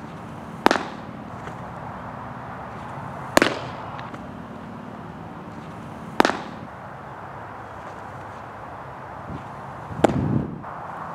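Baseball pitches smacking into a catcher's mitt: four sharp pops, roughly three seconds apart, over steady outdoor background noise.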